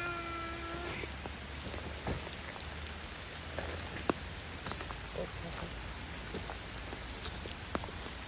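Steady rain falling, with many scattered sharp drops hitting close by. A brief high call with a steady pitch sounds in the first second.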